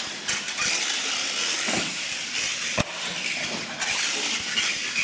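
Radio-controlled monster truck running across a concrete floor, a steady high-pitched noise of motor and tyres, with one sharp knock about three seconds in.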